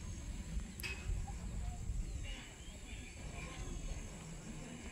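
Wind buffeting the microphone in uneven gusts, with faint bird chirps in the second half and a thin, steady high insect whine.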